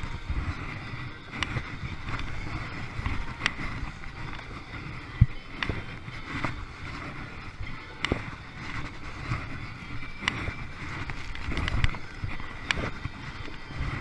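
Wind buffeting the microphone over choppy sea, with water splashing and slapping against a kayak in sharp hits every second or two.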